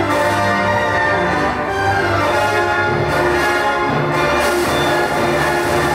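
Symphony orchestra playing live, a full sustained passage of classical music.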